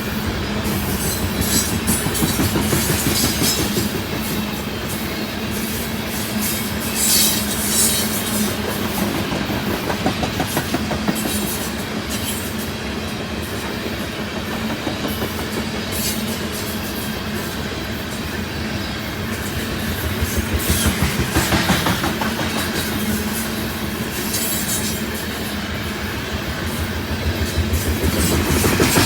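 Loaded coal train rolling past, its heavy wagons' wheels clicking steadily over rail joints over a continuous rumble.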